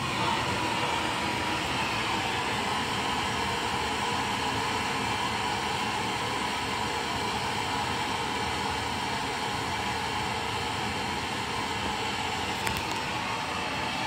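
Handheld gas torch with a yellow fuel cylinder burning with a steady rushing hiss as it heats a copper pipe joint for soldering.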